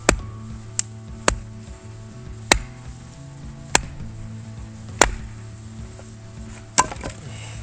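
Firewood being split with a chopping blade: seven sharp chopping strikes about one to one and a half seconds apart, over steady background music.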